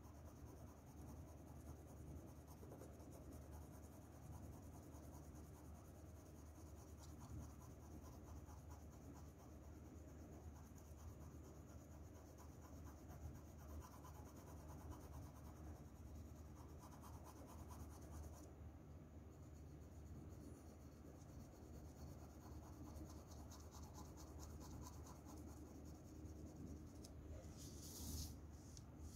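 Faint, continuous scratching of a graphite pencil shading on paper in quick, short strokes, with a brief louder scrape near the end.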